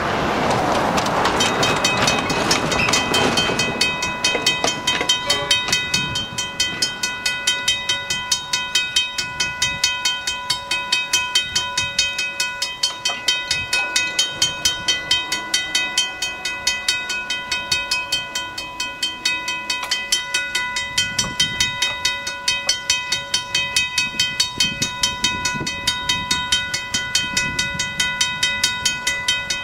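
Mechanical level crossing bells ringing with a rapid, steady stream of strikes, starting about a second in: the crossing's warning for an approaching train. A rushing noise in the first few seconds fades away.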